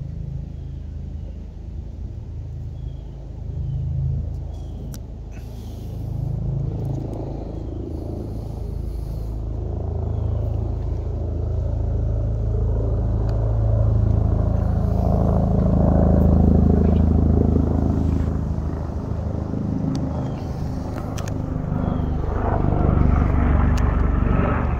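Low engine rumble from outside traffic, swelling to a peak past the middle and easing off again, with a few light clicks.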